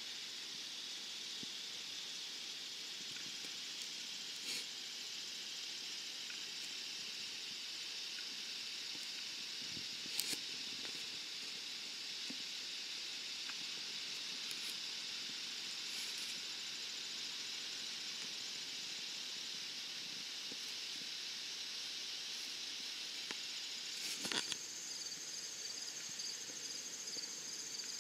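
Steady high-pitched insect chorus, a hiss of crickets. Near the end, a pulsing cricket trill stands out. A few faint clicks are scattered through it.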